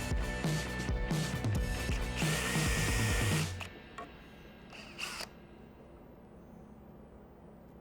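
Background music with a steady beat, with a power drill running for about a second just before the music cuts off. A couple of short knocks follow, then quiet shop room tone.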